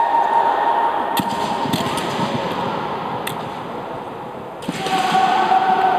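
Kendo practitioners' long, drawn-out kiai shouts, each held on one pitch and echoing in a large hall. One shout fades about a second in and another starts suddenly near the end, with a few sharp cracks of bamboo shinai striking in between.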